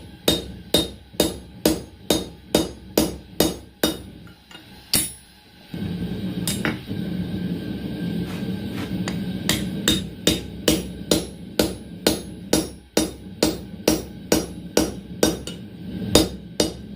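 Hand hammer striking steel bar on an anvil in a quick, even rhythm of about two to three blows a second, drawing the stock down to size. The blows pause for a couple of seconds near the middle, where a steady low rushing noise comes in, then start again and run on over it.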